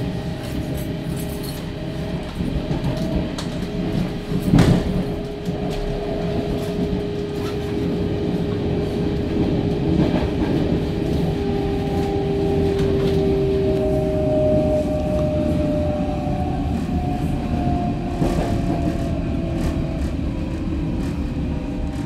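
Berlin S-Bahn electric train running at speed, heard from inside the car: a steady rumble of wheels on rail with several held whining tones. A sharp knock comes about four and a half seconds in.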